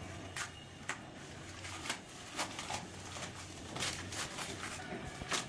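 Crinkling and rustling of white packing wrap pulled off a bathroom fitting by hand, a run of short, irregular crackles.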